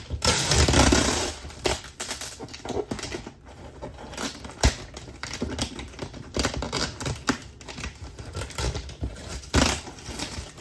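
A dull knife blade scraping and sawing at packing tape and cardboard, with crinkling and clicking of the packaging as it is handled. A rough scraping burst comes in the first second and a sharp click a little before the middle. The blade is too dull to split the tape cleanly.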